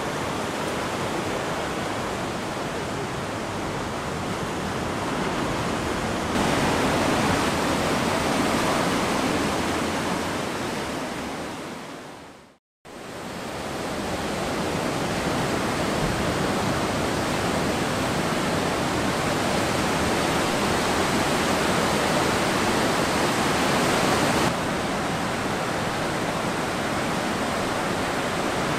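Steady wash of ocean surf breaking on the beach, shifting in level abruptly a few times and dropping briefly to silence a little before halfway.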